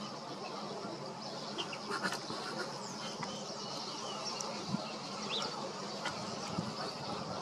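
Wetland ambience: a steady mix of distant bird calls and a high insect-like buzz, with short high chirps now and then.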